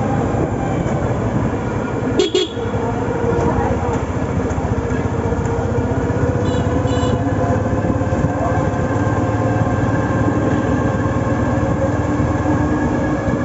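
Yamaha Fazer FI V2's single-cylinder engine running steadily, its pitch slowly rising. A vehicle horn sounds briefly about two seconds in.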